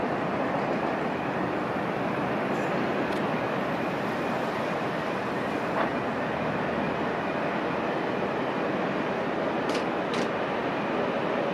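Steady, even rushing noise of airport apron background, with a few faint ticks.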